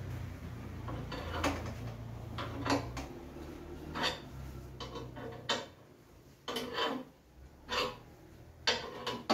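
Steel bar clamps on a clamped wooden panel being handled and adjusted: irregular metallic clicks and clanks, roughly one a second.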